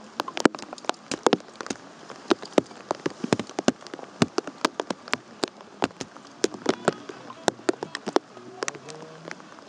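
Raindrops tapping irregularly on a surface close to the microphone, several sharp taps a second at varying loudness.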